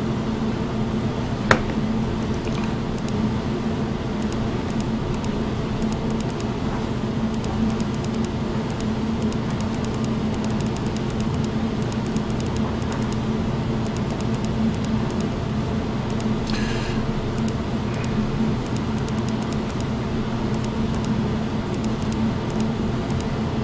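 Steady low mechanical hum with a constant pitch, with a single sharp click about a second and a half in and a brief hiss later on.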